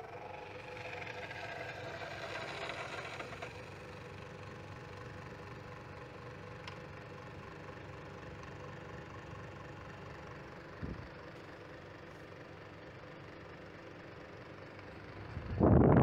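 York wall-mounted split air conditioner's indoor unit humming steadily with a faint whine. There is a single click about eleven seconds in. Near the end comes a sudden loud rush of air noise.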